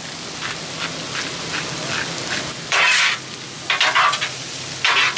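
Corn and bacon sizzling on a Blackstone flat-top griddle while a metal spatula scrapes and turns them. Several louder scrapes of the spatula across the steel come in the second half.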